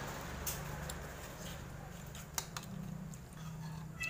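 Faint table sounds of people eating: a few light clicks and clinks of a spoon and dishes over low, steady room noise.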